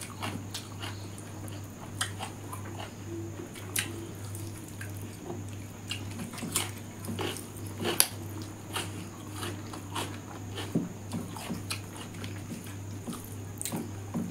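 Close-miked eating by hand: chewing and mouth smacks, with fingers squeezing and mixing rice on a banana leaf, heard as irregular short clicks and smacks. A steady low hum runs underneath.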